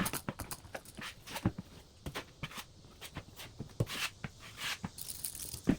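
Drywall knife working joint compound over taped seams: irregular scraping strokes and sharp taps and clicks of the blade on the wall.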